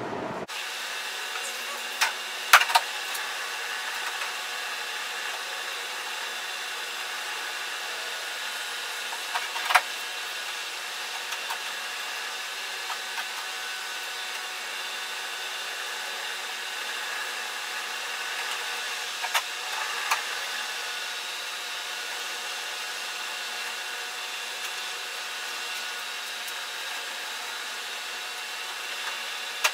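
Steady whir of a fan running, with a few light clicks and knocks from tools and containers as thickened epoxy is worked into the plywood hull seam: a pair about two seconds in, one near ten seconds and a pair near twenty seconds.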